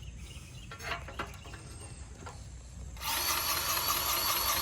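A few light clicks, then about three seconds in a power grease gun starts running steadily, pumping grease into a lube fitting on a grapple attachment.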